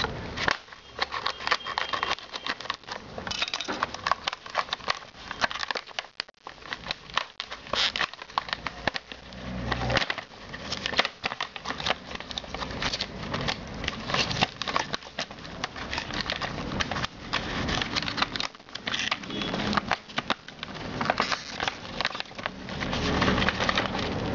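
Clear plastic clamshell packaging crackling and crinkling as hands work it open, with the paper insert rustling as it is pulled out, in a dense run of irregular small clicks and crackles.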